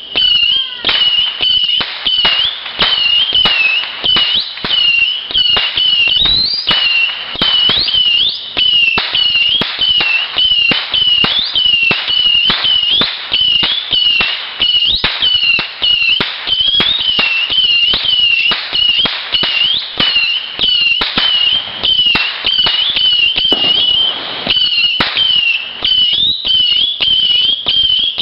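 Firework going off continuously: a steady high whistle that wavers in pitch, with rapid sharp crackling bangs several times a second throughout.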